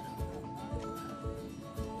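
Background music: a melody of held notes over a steady beat, about two beats a second.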